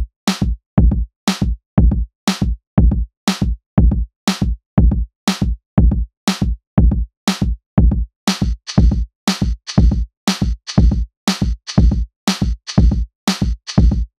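Intro music with a steady electronic drum beat, about two hits a second with short silences between them; from about eight seconds a fizzing, cymbal-like layer joins each hit.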